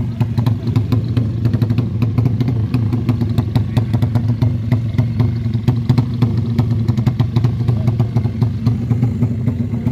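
Racing motorcycle engine running at a steady speed, a low drone with many sharp clicks over it.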